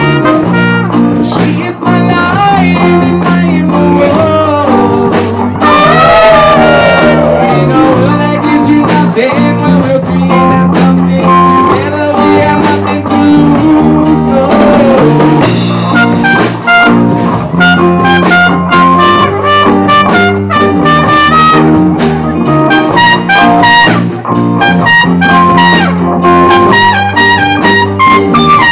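Live band playing a song: electric bass, acoustic guitar, keyboard and drums with a steady beat, and a trumpet line.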